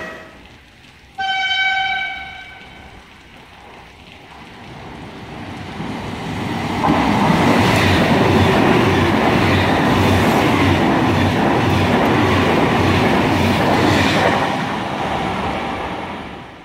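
A short horn blast about a second in, then a Trenitalia Frecciarossa high-speed train passing through at speed. Its rush builds, holds loud with a regular clatter of wheels, and fades near the end.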